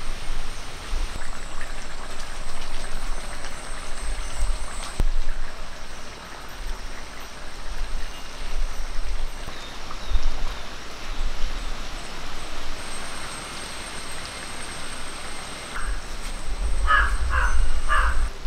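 Egg curry simmering in an iron kadai over a wood fire, a steady bubbling hiss. Near the end a crow caws three times in quick succession.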